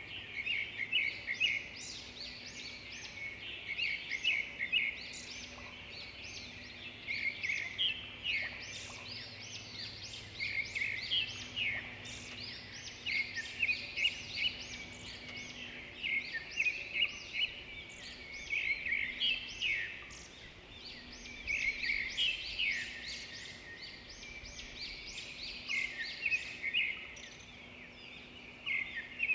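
Small birds chirping and twittering continuously, in quick overlapping bursts of high calls.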